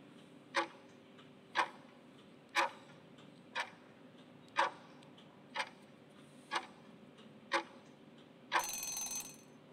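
Clock-ticking sound effect for a quiz countdown timer, one sharp tick each second. Just before the end a short harsh buzz, lasting under a second, sounds as the time runs out.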